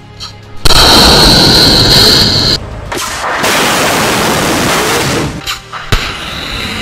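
Missile launch from a coastal launcher with upright tubes: a sudden loud blast about half a second in, then a loud rushing noise of the rocket motor with a high whine. The noise breaks off briefly, comes back and eases near the end, with one sharp crack.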